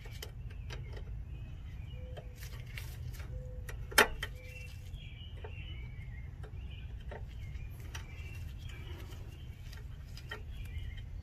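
Needle-nose pliers clicking against a tight cotter pin in a ball-joint castle nut, with a series of sharp metal clicks and one loud snap about four seconds in. Birds chirp faintly in the background.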